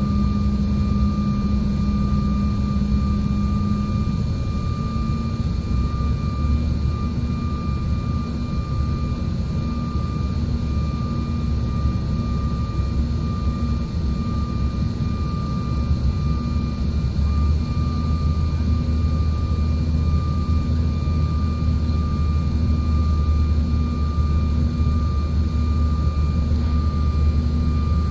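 Cabin noise of a Bombardier CRJ-900 airliner on approach, heard from a rear window seat: the steady drone of its rear-mounted turbofan engines with a steady high whine above it. The deep rumble grows stronger about five seconds in and again a few seconds past the middle.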